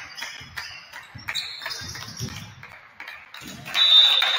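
A basketball bouncing on a gym floor in an echoing hall, with irregular thuds and high squeaks, probably sneakers, on the court. The loudest is a sharp high squeak near the end.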